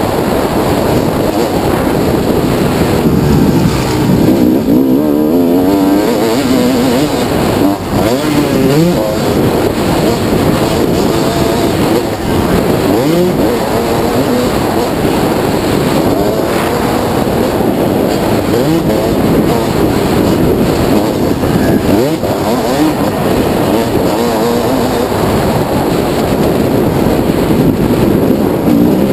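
1998 Kawasaki KX250's two-stroke single-cylinder engine being ridden hard, heard from on the bike, its pitch rising and falling again and again as the throttle is opened and closed over the track.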